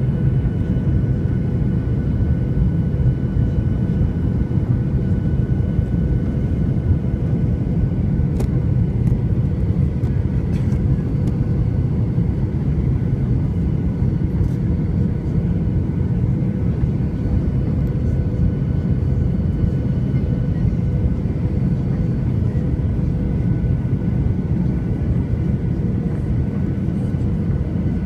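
Steady cabin noise of a jet airliner on final approach: a low rumble of engines and airflow heard from a window seat beside the engine, with a faint steady whine over it.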